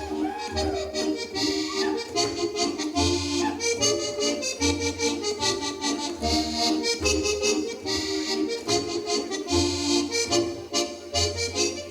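Accordion-led Alpine folk dance music with a pulsing oom-pah bass, played for a Schuhplattler dance, with many sharp percussive hits through it.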